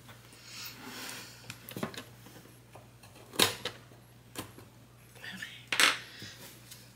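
A small wooden picture frame handled on a tabletop: a soft rustle, then four sharp clicks and knocks spread over a few seconds.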